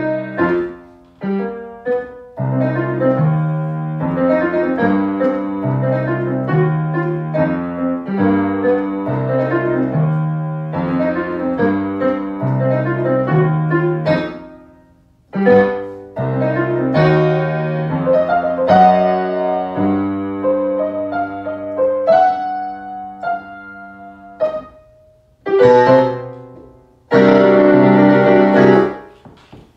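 A piano piece played on a digital piano: a melody over a repeating low left-hand figure. About halfway through the notes die away briefly before the playing resumes, and near the end a loud, dense run of notes stops abruptly.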